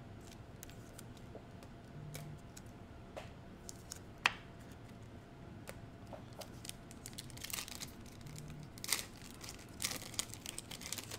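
Wrapper of a Prizm basketball card pack crinkling as it is handled and torn open, with light clicks and taps of cards being handled and one sharp click about four seconds in.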